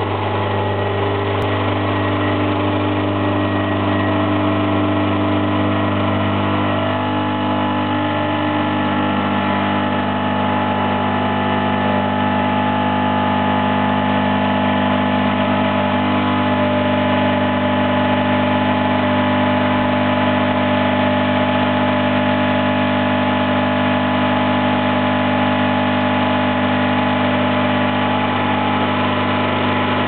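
Isomac Tea II espresso machine's vibratory pump humming steadily while it pulls an espresso shot. It starts abruptly as the group lever is raised and cuts off as the lever is lowered, and its tone shifts slightly a few seconds in.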